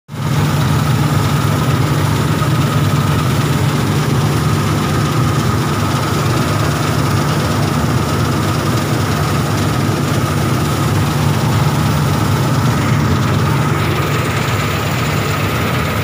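Preet 987 combine harvester running steadily while harvesting wheat, heard from the operator's platform: its engine and harvesting machinery make a deep, even drone with a thin steady whine above it.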